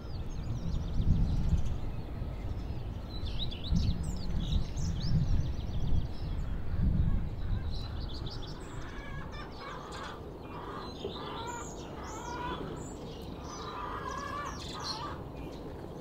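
Wild birds singing and calling at dawn: many short, high chirps, then a run of harsher, lower calls repeating from about nine seconds in. A low rumble swells and fades underneath in the first half.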